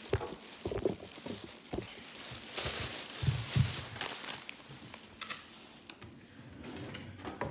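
Thin plastic grocery bags rustling and crinkling as they are handled, loudest a few seconds in, with a few soft knocks.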